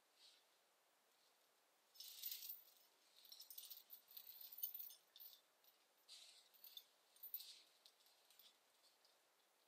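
Faint, irregular rustling and crackling of dry leaf litter and brush underfoot, in short bursts that start about two seconds in and die away near the end.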